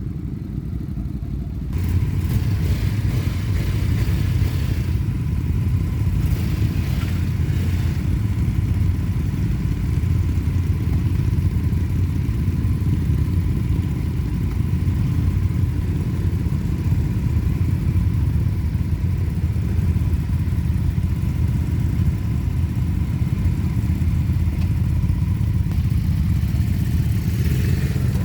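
Motor vehicle engine running steadily, a dense low rumble that grows louder about two seconds in, with a thin steady whine over it.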